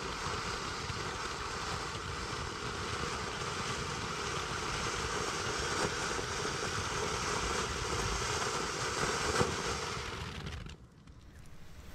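Ground fountain firework spraying sparks with a steady hiss, a few sharp crackles through it. The hiss stops suddenly near the end.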